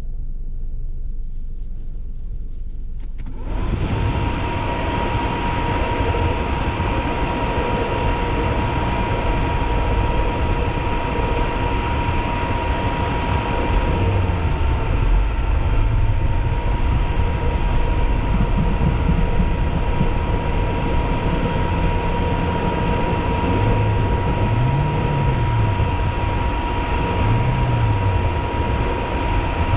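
Car engine running in deep snow and revving up and down a few times, under a loud steady rushing noise that starts suddenly a few seconds in. A thin steady high tone runs through it.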